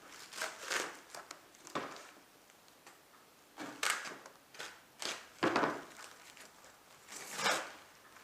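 Packaging being handled and unwrapped: irregular rustles and scrapes of bag and box material, coming in bursts.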